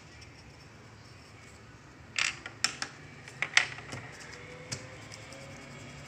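Pencil and hands on a sheet of drawing paper on a table: quiet at first, then a cluster of sharp taps and clicks about two to four seconds in, and one more near five seconds.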